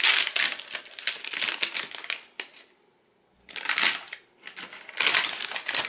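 Brown paper bag crinkling and rustling in the hands as it is opened to unwrap a bath bomb. The sound comes in bursts, with a brief silent pause a little before halfway.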